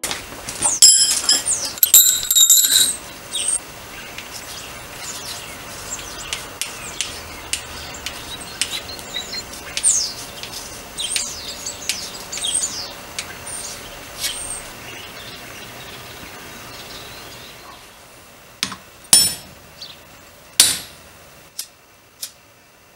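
Thin steel bars clinking together as they are handled on an anvil, with many short high chirps over a faint steady background. A few sharp, loud metallic knocks come near the end.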